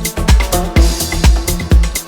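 Electronic dance music from a 126 BPM DJ mix: a steady four-on-the-floor kick drum at about two beats a second, with hi-hat ticks between the beats and sustained synth notes. A short hissing sweep rises in the highs about halfway through.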